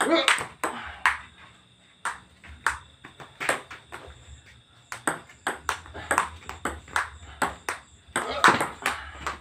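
A table tennis rally: the ball clicks sharply off the paddles and a makeshift wooden table top in quick, irregular succession. Louder bursts come near the start and, loudest, about a second before the end.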